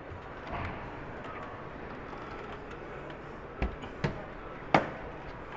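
Steady background hubbub of a busy exhibition hall, with three sharp knocks near the end, the last the loudest.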